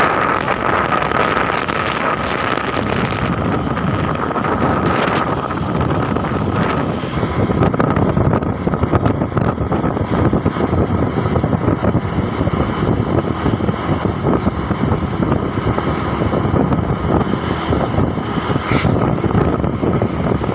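Vehicle engine and road noise at speed, with wind buffeting the microphone. A faint steady whine rides over it in the first few seconds and then fades away.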